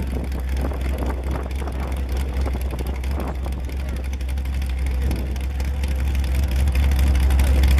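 Ultra4 race car's engine idling with a steady low rumble, growing louder near the end, with people's voices in the background.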